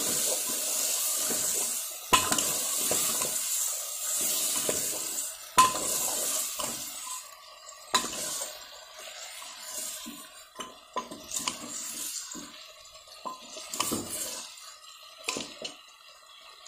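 Raw mutton frying in hot oil and masala in an aluminium pressure cooker, sizzling, while a steel ladle stirs it and knocks and scrapes against the pot now and then. The sizzle is loud at first and dies down through the second half.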